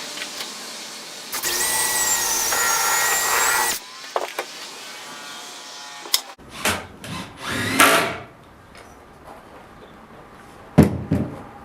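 Power drill driving a screw into wood, running steadily for about two and a half seconds with a high whine. This is followed by a few short scrapes of lumber being handled and a sharp knock near the end.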